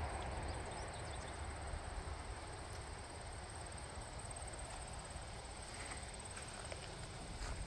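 Quiet outdoor ambience: a steady high-pitched insect trill, with a low wind rumble on the microphone.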